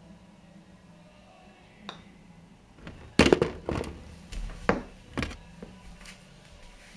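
A putter taps a golf ball about two seconds in, and about a second later the ball drops into the hole of an indoor putting mat with a loud clatter of knocks. A few more single knocks follow as the ball settles and someone comes up to the hole.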